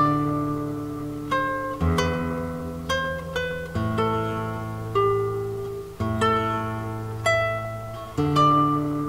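Background music on a plucked string instrument, like an acoustic guitar: a slow run of single notes and chords that ring and fade, a new one about once a second.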